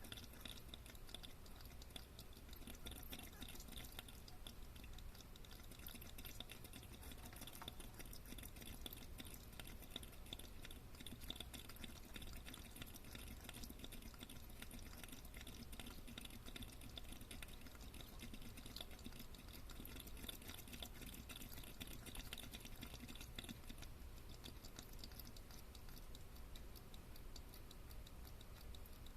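Mud crab breathing air with its body held up out of the seawater: a faint, continuous run of fine crackles and clicks.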